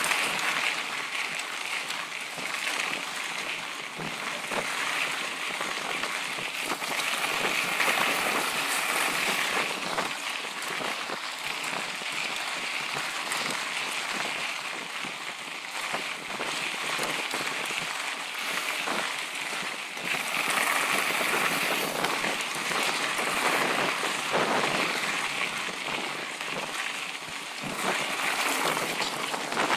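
A mountain bike riding over a dry dirt and gravel trail: a steady crunching hiss from the tyres, with the bike rattling and clicking over bumps.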